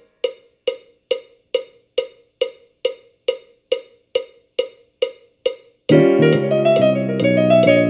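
Jazz trio play-along track at a drum break in trading fours: the piano drops out, leaving only an even metronome click on every beat, a little over two a second, as the drummer's four bars are counted off. About six seconds in, the piano comes back in with full chords.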